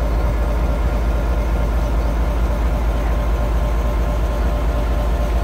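Class M2 diesel-electric locomotive passing close by at walking pace, its diesel engine running with a steady, heavy low throb.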